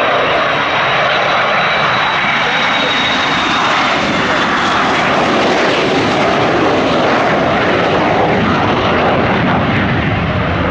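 Aircraft engine noise, loud and steady, its low rumble growing stronger through the second half.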